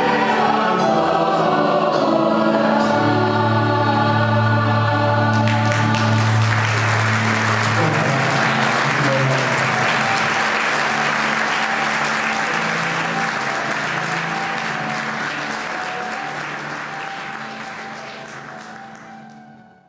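A mixed choir sings the closing chord of a traditional Italian Christmas carol. About five seconds in, applause breaks out and carries on, fading out at the end.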